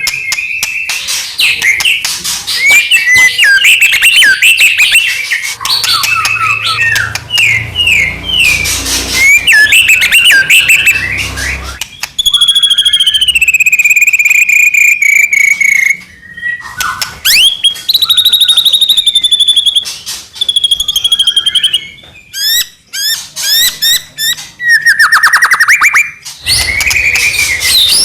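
White-rumped shama (murai batu) singing loudly and without pause: a fast string of varied whistles, chattering trills and rattles. About halfway through comes one long clear whistle sliding down in pitch.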